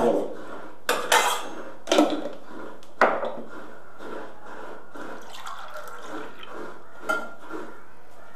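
Steel mugs and a glass jug clinking as they are handled on a kitchen counter: three sharp clinks about a second apart, another near the end, with liquid being poured in between.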